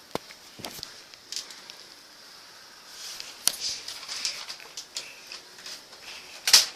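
Paper and craft materials being handled and rustled, with scattered sharp clicks and the loudest click near the end.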